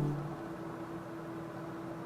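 Background music dying away, leaving one faint held note over low hiss.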